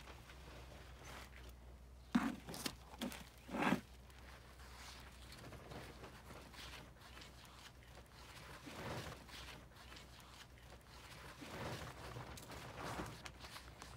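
Gloved hands working potting soil in plastic planters: soft rustling and scraping as soil is scattered and chive roots are pressed in. There are a few sharp knocks about two to four seconds in.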